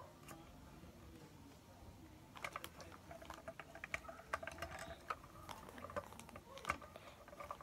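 Faint scattered clicks and taps of fingers handling and tapping a smartphone, thickening about two seconds in.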